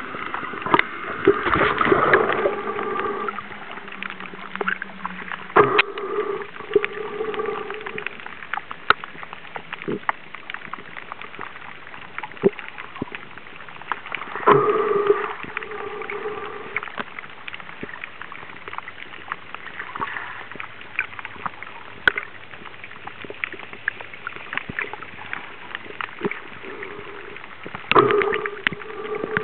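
Underwater recording: a diver's exhaled breath bubbling out in about four bursts several seconds apart, each lasting one to three seconds, over a steady hiss with scattered sharp clicks.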